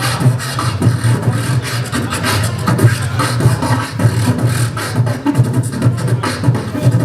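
Hip-hop backing beat played loud, with a heavy steady bass and regular sharp drum hits.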